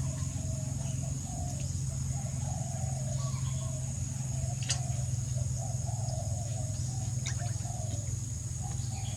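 Background of a steady low hum with a thin high whine over it and birds calling faintly, cooing among them, with two sharp clicks about five and seven seconds in.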